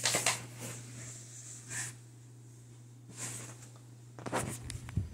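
Short bursts of breath and rustling handling noise over a steady low hum, with a cluster of knocks and rustles near the end as the recording device is handled.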